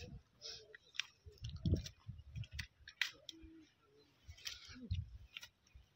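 Scattered clicks and rustles with a few soft thuds as bamboo sticks are worked into mud and water hyacinth at the water's edge.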